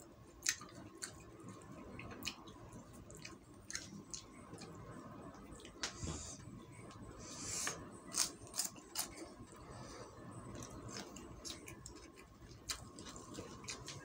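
Close-up eating sounds: a man chewing fried quail, rice and raw cucumber with wet mouth smacks and many short sharp clicks, and a couple of brief crisp crunches a little past halfway as he bites into cucumber.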